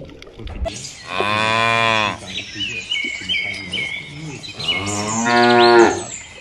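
A cow mooing twice: one long moo about a second in, then a second, louder one near the end. Short high bird chirps come in between.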